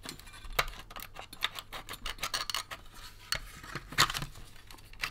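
Plastic housing of a vintage toy periscope being prised apart by hand: irregular sharp clicks, creaks and scrapes as its clips and tabs give way, the loudest snap about four seconds in.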